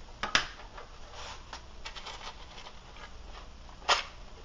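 Small clicks, taps and scrapes of objects being handled and set down on a workbench. Two sharper knocks stand out, one about a third of a second in and one near the end.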